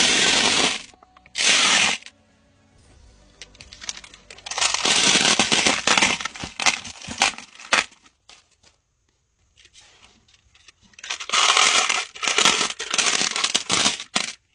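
Small tumbled crystal stones poured from a plastic bag onto a heap of tumbled stones, rattling and clinking in several separate pours, with the bag crinkling.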